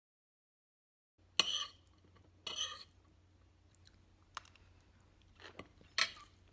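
Dead silence for about a second, then someone chewing a mouthful of the stir-fried long beans, with a few sharp clicks of cutlery against a dish.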